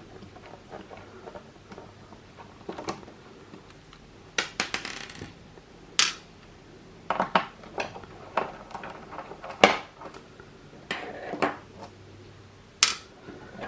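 Irregular clicks, knocks and clinks of hard plastic and metal parts as the Xbox One S's internal hard drive is worked loose from the console, with a short rattle about four and a half seconds in and the loudest knock about ten seconds in.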